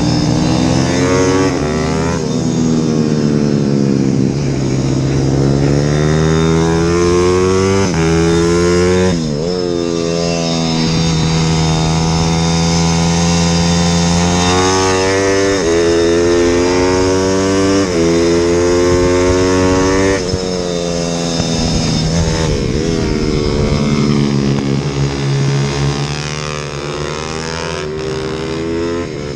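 IMR 190cc pit bike's single-cylinder four-stroke engine at full throttle around a track, its pitch climbing through each gear and dropping sharply at each shift, with a deep dip about nine seconds in where it slows for a corner.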